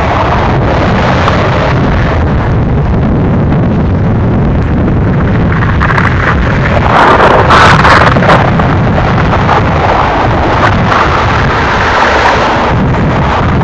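Freight cars of a mixed manifest train (tank cars, covered hoppers, boxcars) rolling past, a steady rumble and rattle of wheels on rail. It swells louder for a second or two about seven seconds in.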